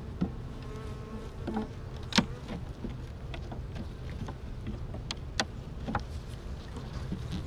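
Honeybees buzzing around an opened hive, a steady hum, with several sharp clicks and knocks, the loudest about two seconds in.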